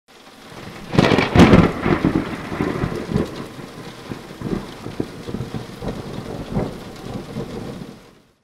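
Thunderstorm: a loud thunderclap about a second in, then thunder rumbling and crackling over steady rain. It fades in at the start and fades out near the end.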